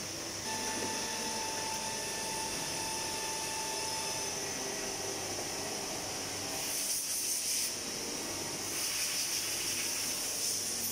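Steady machine-shop noise from running CNC machining centres: a constant high hiss over a low hum, with a thin whistling tone from about half a second in to about four seconds. Two stretches of louder hissing come later, around seven seconds and from about nine seconds on.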